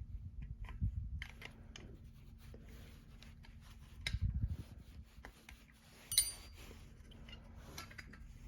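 Small metal carburetor parts handled and worked apart by hand: scattered light clicks, rubbing and scraping, a muffled bump about four seconds in, and one sharp metallic clink that rings briefly about six seconds in.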